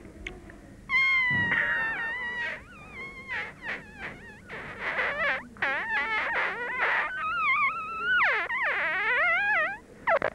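A man imitating a mosquito with his voice: a thin, high, wavering whine in a run of short phrases, starting about a second in, with swooping up-and-down glides near the end.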